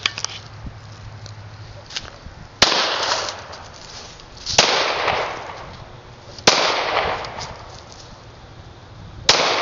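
Ruger SR9 9mm semi-automatic pistol fired four times in slow aimed shots about two seconds apart, each sharp crack followed by a long echoing decay.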